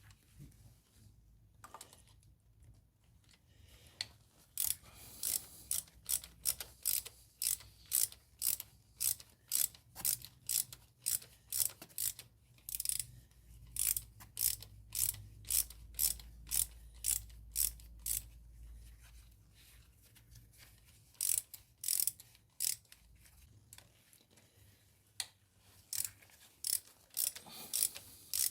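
Ratchet wrench clicking in quick, even strokes, about two a second, while it loosens a spark plug on a Renault Duster engine. The clicking pauses twice and then resumes.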